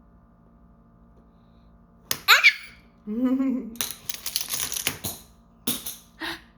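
Small plastic magnetic building tiles clacking and rattling together as they are handled, in sharp irregular clicks and a longer clatter, with a brief vocal sound in between.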